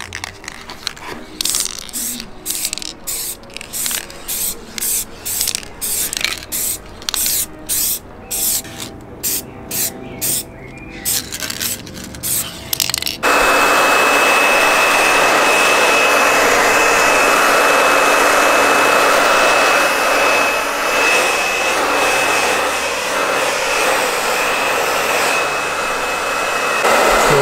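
An aerosol spray paint can hissing in short repeated bursts, about two a second. About halfway through, a hair dryer cuts in abruptly and runs steadily with a thin high whine, blowing on freshly sprayed paint to dry it.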